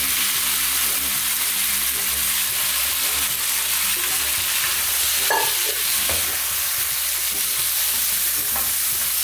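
Fish pieces, onion, tomato and peppers frying in a hot pan with a steady sizzling hiss as boiled ackee is tipped in, then stirred with a spatula near the end.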